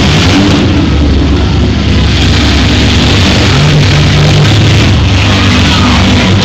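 Several demolition-derby minivans' engines running and revving hard together, loud and continuous.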